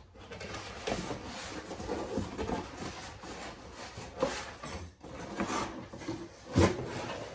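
Cardboard box being handled and pulled open: flaps rubbing and scraping, with scattered light knocks, a louder one about four seconds in and the loudest near the end.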